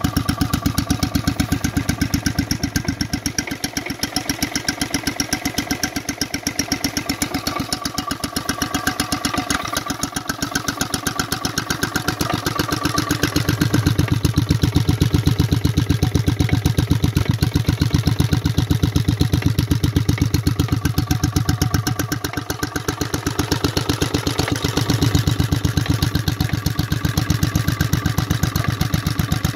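H V McKay Sunshine 7 hp type E two-stroke stationary engine running steadily, its firing beats coming in a rapid, even rhythm. The sound grows louder about halfway through, with a short dip near the end.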